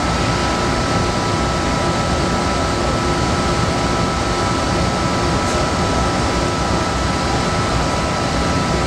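Toyoda VH45 CNC machining center running: a steady mechanical noise with a steady high whine on top.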